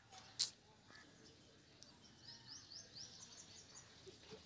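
Faint background with a bird chirping a quick run of about eight short high notes in the middle, and one sharp click about half a second in.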